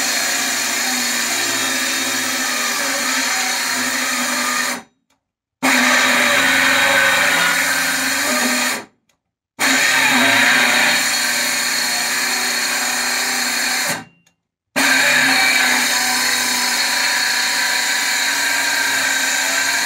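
Parkside 20 V cordless circular saw running and cutting through a board, its motor under load on a nearly flat battery. The saw is heard in four long stretches broken by three short silences.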